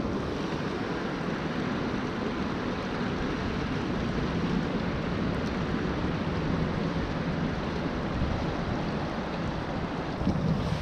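Steady rush of a fast river running over a rocky riffle.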